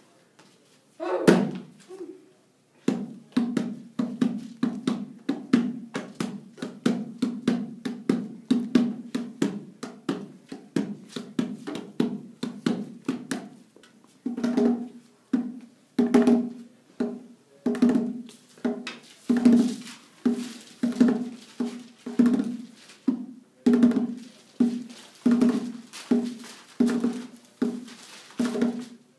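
Small laced hand drum beaten with the hands in a steady rhythm. The beat is quicker, about three strikes a second, in the first half, then slower with stronger accented beats from about halfway through.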